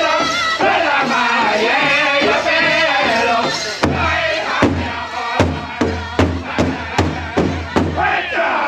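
Powwow drum group singing a sharpshooter contest song over the big drum. About four seconds in the singing drops out and the drum is struck alone with even, loud beats, about two and a half a second. Near the end a man's voice starts.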